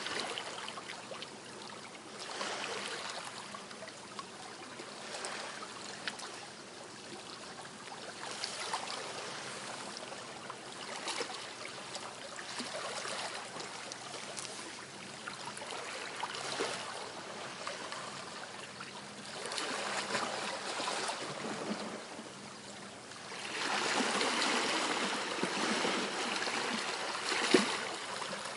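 Small waves washing on a shore, each swell rising and falling every few seconds, with a louder stretch of surf near the end and one sharp click.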